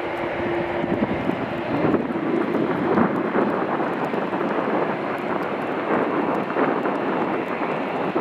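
Airbus A330 airliner's jet engines running as a steady, noisy rush, with wind buffeting the microphone in crackly gusts.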